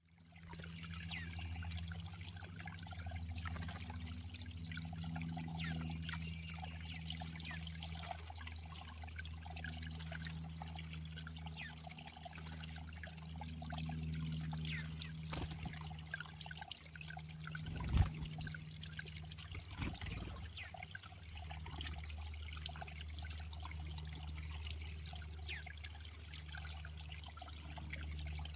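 Water steadily trickling into a bird pond, with faint short bird chirps. A couple of sharp knocks about two-thirds of the way through.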